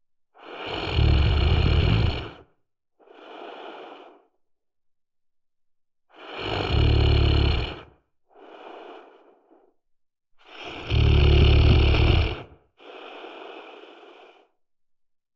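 A person snoring: three loud, low buzzing snores on the in-breath, about five seconds apart, each followed by a quieter out-breath.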